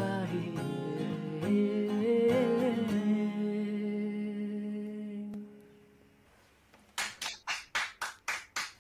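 A man's voice carrying a melody over a strummed acoustic guitar, ending on a held chord that fades out about five seconds in. About a second and a half later a few people begin clapping, roughly five claps a second.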